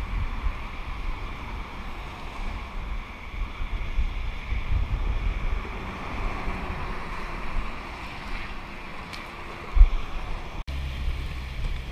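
Wind buffeting the microphone in gusts, over a steady rushing hiss of wind and water. There is a single dull thump near the end.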